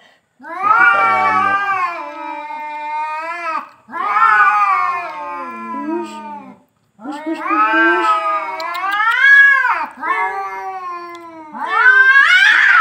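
Two domestic cats caterwauling at each other in a face-off: about five long, wavering yowls that rise and fall, each a few seconds long with short breaks between them. This is the aggressive threat-yowling that comes before a cat fight.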